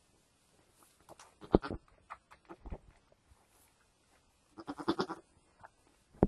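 A nanny goat tending her newborn kid, with a short run of quick, low calls about five seconds in. Scattered rustles and knocks in the straw, including a sharp knock at about a second and a half.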